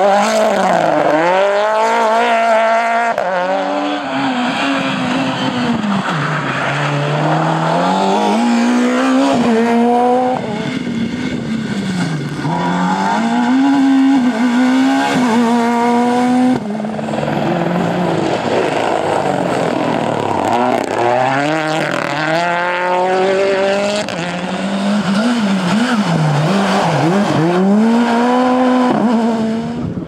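Rally cars racing past one after another, among them a Mini John Cooper Works S2000 and a Ford Fiesta RRC. Each engine's pitch climbs and drops repeatedly through gear changes and lifts, with sudden cuts from one car to the next about a third of the way in, around the middle and again after about 24 seconds.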